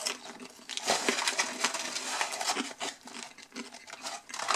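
Paper fries carton crinkling and rustling as it is handled, with the curly fries shifting inside it, busiest about one to three seconds in.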